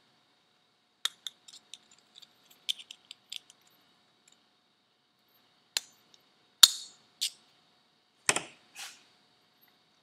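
Small metal hand tools clicking and ticking against small metal turbocharger parts. A scatter of light ticks comes in the first few seconds, then a handful of sharper clicks past the middle.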